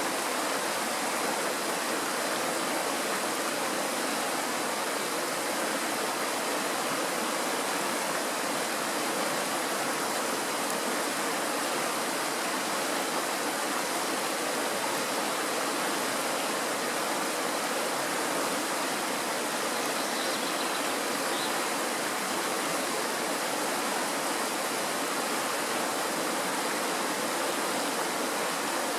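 Shallow, stony mountain stream rushing steadily over rocks and a small riffle.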